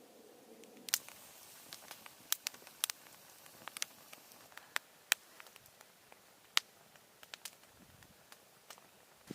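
Wood campfire crackling, with sharp irregular pops every fraction of a second to a second.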